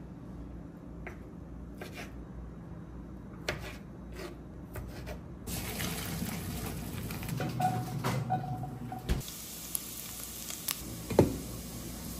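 A few light taps of a knife on a wooden cutting board, then about five and a half seconds in, a rush of hot pasta water as a pot of cooked fusilli is poured into a plastic colander in a stainless steel sink. A knock sounds just after nine seconds in.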